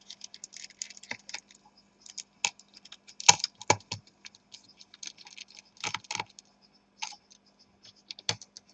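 Screwdriver undoing the small screws that hold a laptop's CPU and graphics-chip heatsink, giving irregular light clicks and ticks with a few sharper taps, over a faint steady hum.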